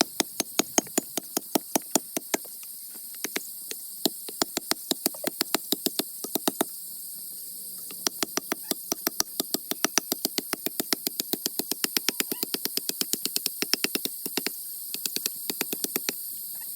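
Rapid, even knocking, about five strikes a second, in three runs with short pauses, like quick hand-tool work on wood or stone. A steady insect hiss runs underneath.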